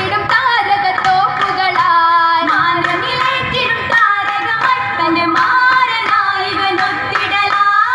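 Group of girls singing an Oppana (Mappila) song in unison, their melody sliding and ornamented, over regular hand claps keeping the beat.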